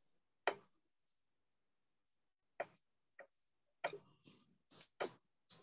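Dry-erase marker writing on a whiteboard: a faint scattering of short scratchy strokes and taps, coming closer together in the second half.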